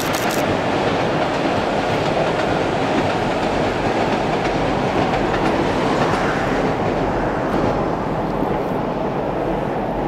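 Tobu 8000 series electric train running away along the line: a steady rumble of wheels on rail, with a quick run of clicks at the start as the last wheels cross a rail joint, easing slightly near the end.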